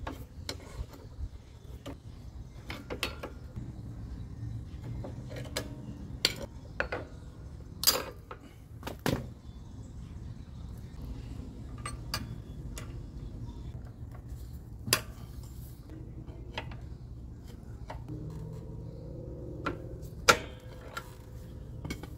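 Irregular sharp metal clicks and clanks of vise grips and a pry bar working against a truck drum brake's shoes and return spring while the spring is stretched into place, a few of them louder knocks, over a low steady rumble.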